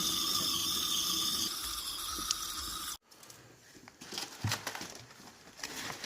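Mackerel frying in oil, a steady sizzle that cuts off abruptly about three seconds in, followed by a quieter stretch of scattered light clicks and taps.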